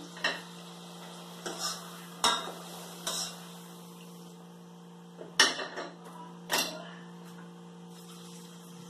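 Kitchen utensils clinking and knocking against a pan and plate in about seven short, irregular strikes, the loudest about five and a half seconds in. A steady electrical hum runs underneath.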